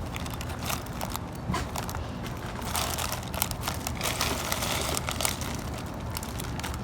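Ice cubes poured into a plastic zip-top bag, clattering and rattling against each other and crinkling the plastic in a dense, irregular stream of clicks, busiest in the middle.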